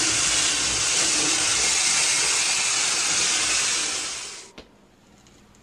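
Steady hiss of steam from the SECR P-class tank engine Bluebell pulling its train, played from a 1970 vinyl LP recording. It fades out about four seconds in and ends with a single click.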